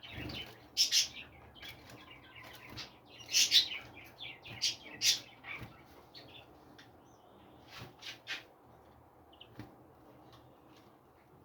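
Small songbirds chirping in short, sharp calls, many in the first half, then only a few scattered chirps.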